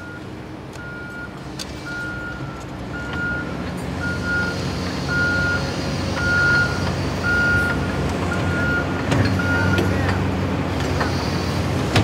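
Backup alarm on heavy construction machinery beeping at one steady high pitch, about once a second, over the running engines of the machines, which grow louder. The beeping stops near the end, where a few sharp metallic clanks sound.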